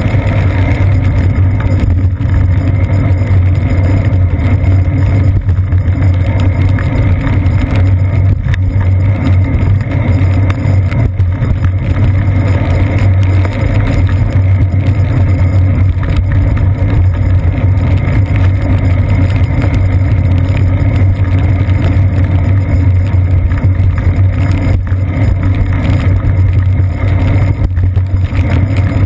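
Loud, steady low rumble of wind and road vibration picked up by a GoPro camera mounted on a bicycle's seat post as the bike rides over wet city streets.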